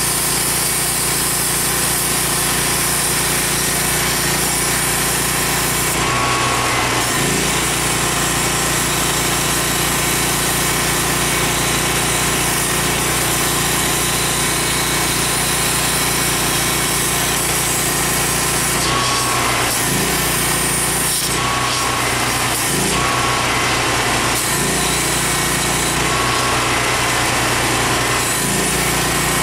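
Steady drone of a running machine with a power cutting tool slicing the rusted steel rocker panel. The tool's pitch shifts and it stops and starts several times, around six seconds in and repeatedly in the second half.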